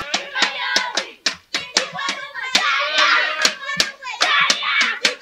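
A group clapping their hands in a steady rhythm, about three to four claps a second, with voices calling out over the claps.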